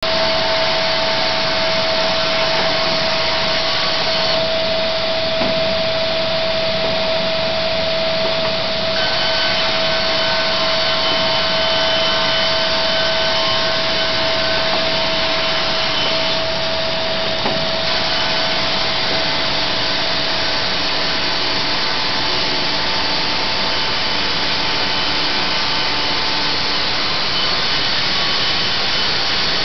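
Sawmill running as its blade cuts through a board, its feed speed set by an automatic controller: a loud, steady machine noise whose tones shift a few times.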